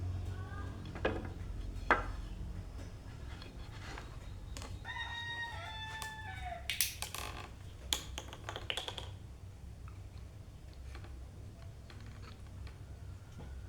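A rooster crowing once, a call of nearly two seconds that drops in pitch at the end, about five seconds in. A few sharp knocks and taps are scattered around it, with a low steady hum underneath.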